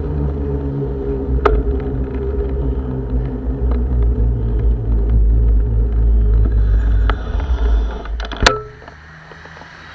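Strong wind buffeting the microphone of a bike-mounted camera while cycling, a loud low rumble. About eight and a half seconds in there is a sharp knock, and the rumble drops away abruptly.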